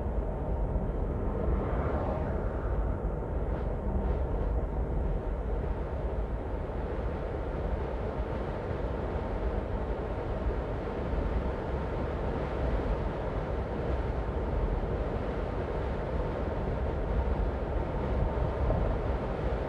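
A car driving along the road: a steady low rumble of road and tyre noise.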